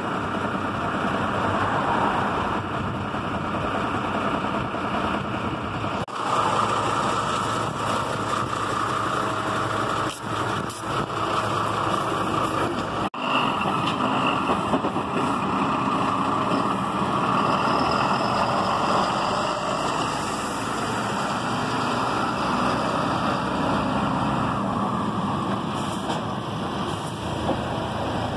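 A MAN fire engine's diesel engine running steadily, breaking off abruptly twice.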